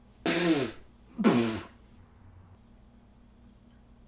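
Two short, loud vocal bursts from a person about a second apart, each falling in pitch.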